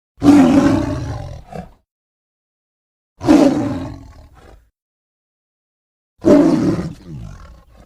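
Tiger roaring three times, about three seconds apart: each roar starts hard and fades out over about a second and a half.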